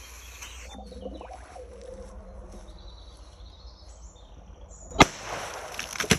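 A firecracker exploding with one sharp, loud bang about five seconds in, followed by a couple of smaller cracks near the end.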